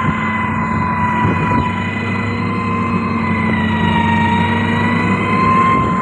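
Komatsu motor grader's diesel engine running steadily as it pushes stone, with a loud high whine over the engine that wavers slightly up and down in pitch.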